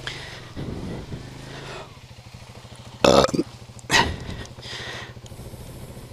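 Kawasaki KLX250's single-cylinder engine idling steadily, with two loud short bursts of noise about three and four seconds in.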